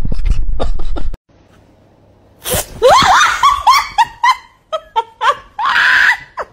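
Wind rumbling on the microphone for about a second, then, after a short gap, a person laughing hard in loud, pitch-bending bursts with gasps for breath.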